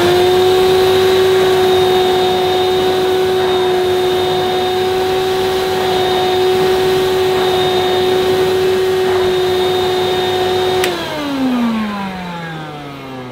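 1984 Hoover Portapower S1126 vacuum cleaner running at full speed with a steady whine while its floor nozzle is pushed over thick carpet. About eleven seconds in it is switched off with a click, and the motor winds down slowly, the whine falling steadily in pitch.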